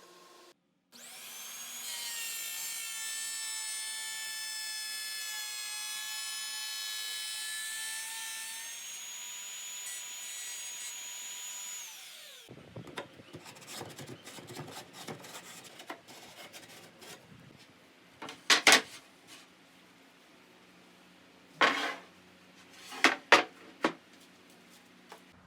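An electric woodworking power tool starts up and runs with a steady high whine for about eleven seconds, then winds down. After it, a few sharp knocks and clatters of wood follow.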